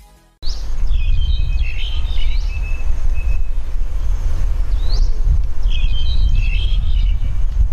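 Birds calling in two bursts of chirps and whistles, each opening with a rising swoop, over a loud, steady low rumble of outdoor noise.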